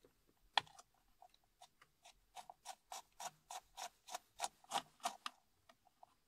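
A screwdriver undoing a T20 Torx screw on a steering wheel trim, making a run of short clicks: sparse at first, then about four or five a second through the middle.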